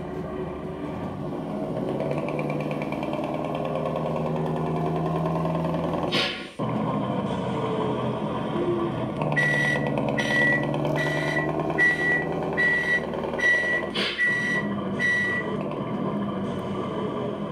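Electronic sound module of an RC Scania T530 'Torpedo' model truck playing a diesel truck engine running, with a short burst of air hiss about six seconds in. Then a reversing beeper sounds as the truck backs up: evenly spaced beeps, about one and a half a second, with another air hiss partway through.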